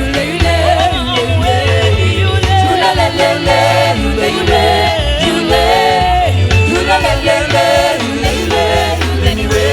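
Gospel worship music: voices singing a wavering melody over a band with a steady, strong bass line.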